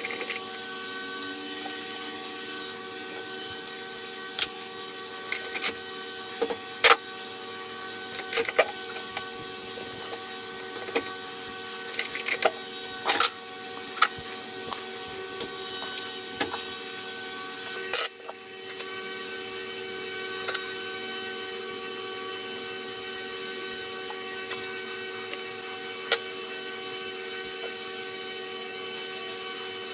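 Scattered clicks and knocks of metal tools and parts being handled on a bench vise and workbench, over a steady hum.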